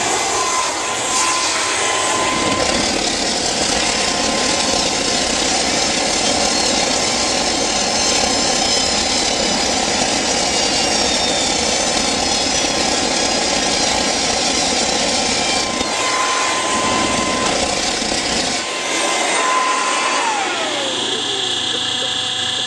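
Homebuilt turbocharger turbojet being started with a leaf blower forcing air into its compressor: a loud steady rush with a high turbine whine, during a hot start that leaves the fan red hot. Near the end the deep rumble drops out and the whine falls in pitch as the turbine spools down.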